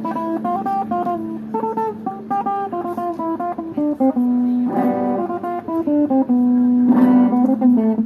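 Background music: a guitar picking a melody of short notes over a steady low note, with strummed chords about five and seven seconds in.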